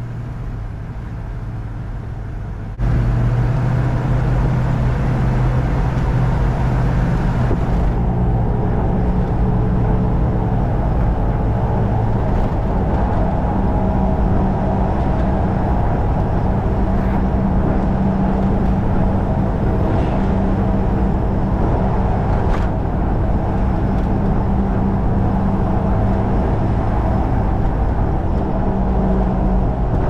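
Hummer H1 driving along with its engine running as a steady low drone under road and wind noise, heard from the open-top cab. The sound gets abruptly louder about three seconds in, then stays steady.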